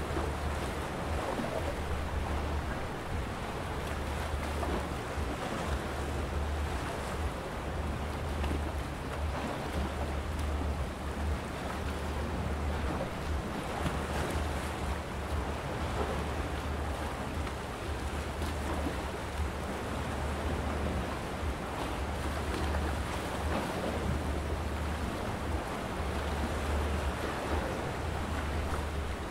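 Calm sea waves washing steadily against shoreline rocks, with wind on the microphone adding an uneven low rumble.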